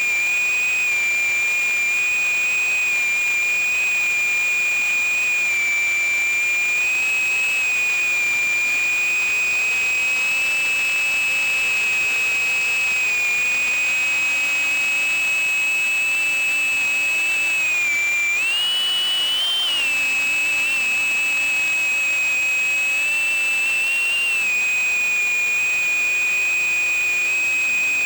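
Motors of a 78mm 2S micro FPV drone (SPC Maker Mini Whale HD) whining at a steady high pitch. The pitch steps up for a couple of seconds about two-thirds of the way through as more throttle is given.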